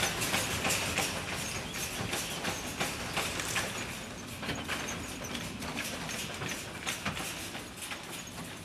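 A cart loaded with bundled rushes being wheeled along, its wheels and frame rattling with many irregular clicks over a low rumble, fading slowly toward the end.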